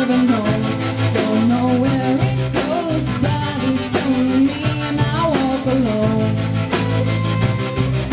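Live rock band playing a song: a female singer's voice over electric and acoustic guitars and bass guitar, with a steady beat.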